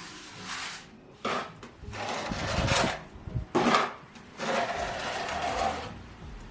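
A series of about five rubbing or scraping strokes on a hard surface, each up to a second and a half long, with short pauses between them, typical of hand work such as sanding or scraping during renovation.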